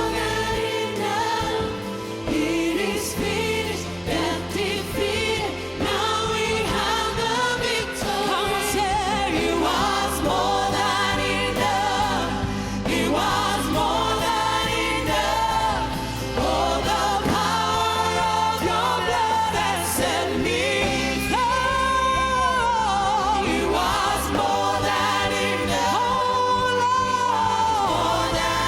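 Live gospel worship band and choir performing a song: lead and choir voices singing with vibrato over keys, bass and drums.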